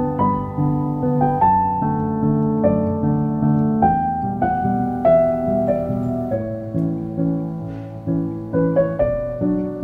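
Gentle background piano music: single notes played one after another over soft sustained chords, each note fading after it is struck.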